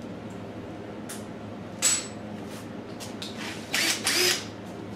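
Small handheld power tool with a wire brush fitted, run in three short blips of a fraction of a second each, one about two seconds in and two close together near the four-second mark, over a steady low hum.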